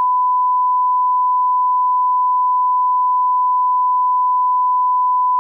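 Line-up reference tone played with television colour bars: one steady, pure test beep at a thousand hertz.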